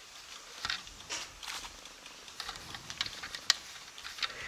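Light, scattered clicks and taps of plastic LEGO bricks being handled and pressed onto the build, about half a dozen, the sharpest a little after three seconds in.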